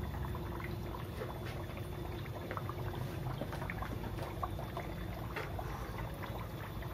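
Water bubbling and trickling in aquarium tanks: many small irregular pops and splashes over a steady low hum.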